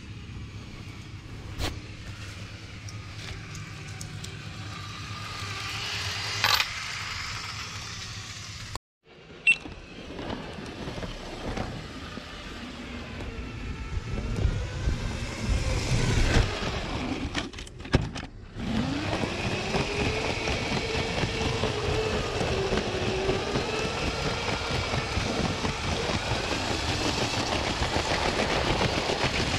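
Lego 9V train motor running as the train rolls along its track: a steady whir whose pitch bends slowly up and down with its speed, loudest in the second half. Earlier there is a quieter stretch with a few sharp clicks, and a brief silence about nine seconds in.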